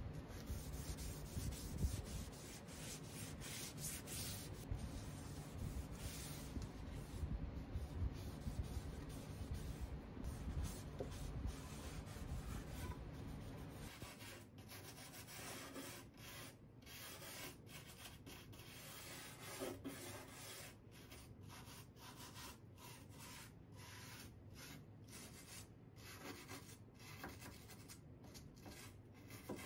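Hand scrubbing stripped wood: first a pad rubbed steadily over a drawer's bare interior, then from about halfway short, quick strokes of a wire brush and sandpaper along the cabinet's carved top, taking off the last bits of old finish.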